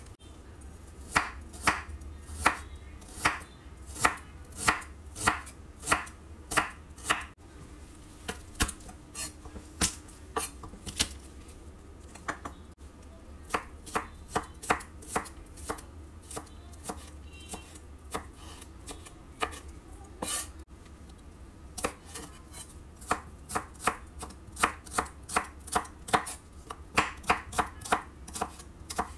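Chef's knife chopping squid, garlic and shallots on a wooden cutting board: a long series of sharp knocks as the blade strikes the board, about one to three a second, in several separate runs.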